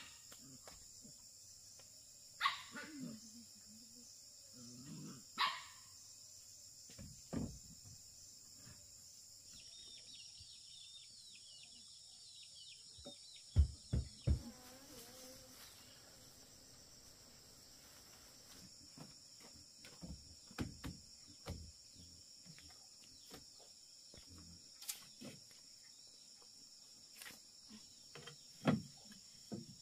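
Steady high insect chorus, with two short animal calls a few seconds apart near the start, three dull knocks in quick succession about halfway through, and scattered light ticks.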